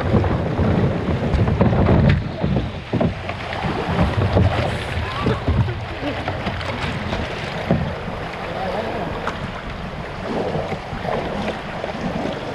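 Kayak being paddled on a river: irregular paddle splashes and moving water around the hull. Wind buffets the microphone, heaviest in the first two seconds.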